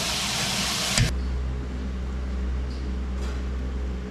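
Tap water running in a steady hiss that cuts off abruptly about a second in with a short knock. After that, a steady low machine hum, like a fan.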